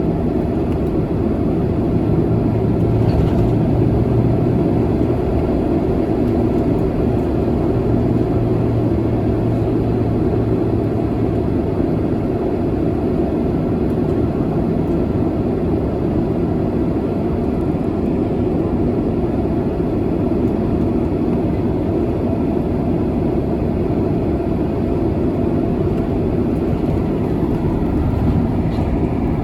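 Jet airliner's engines running with a steady, even noise and a low hum, with no rise or fall in level.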